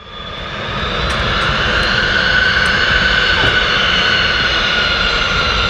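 The HondaJet's two GE Honda HF120 turbofan engines running at taxi power, a steady high whine that drifts slightly lower, over a rough low rumble from wind on the microphone. The sound fades in over the first second.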